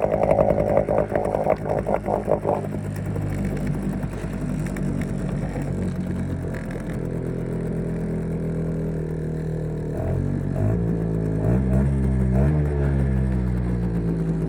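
5 hp outboard motor running, choppy and uneven for the first couple of seconds, then settling to a steady run. About ten seconds in it revs up, its pitch rising and wavering before it eases back.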